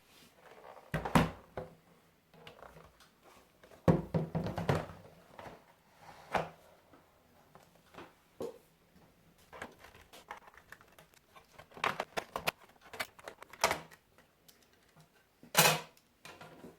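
Irregular clicks, taps and short clattering knocks of hands working on a laptop's plastic casing and parts. The loudest clatters come about a second in, around four seconds in, and again near the end.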